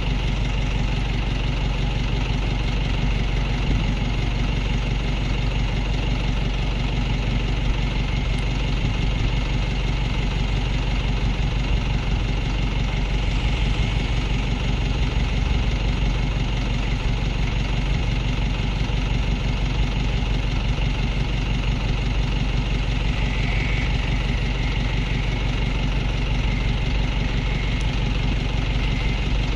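A heavy engine idling steadily, a constant low drone with no change in pitch or level.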